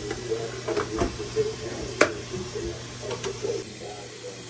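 Metal kitchen tongs clicking and knocking against a plate as fried chicken pieces are set down, with one sharp knock about two seconds in, over a faint background murmur and hum.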